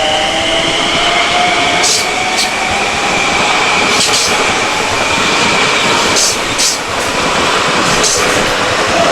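Long Island Rail Road electric multiple-unit train running past, with a steady traction-motor whine over the wheel rumble and several sharp clacks of wheels over the rail joints.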